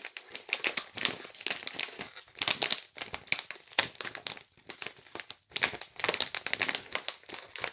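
Plastic snack packaging crinkling and rustling as it is handled, in irregular bursts with a few brief pauses.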